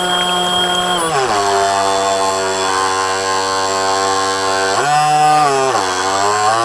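HK 2842 water-cooled brushless motor of a radio-controlled model boat running with a high whine. About a second in its pitch drops sharply as the autopilot cuts the throttle for a waypoint, holds low, then rises and dips twice near the end as the throttle changes again.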